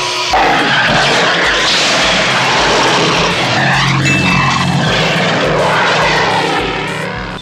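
Horror-film soundtrack of an attack scene: a loud, dense rushing noise over a low pulse beating about twice a second, with a brief high steady tone about four seconds in.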